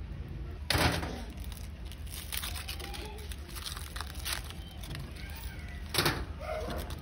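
Aluminium foil crinkling and crackling as hands peel open a foil-wrapped grilled fish, with a louder rustle about a second in and another near the end.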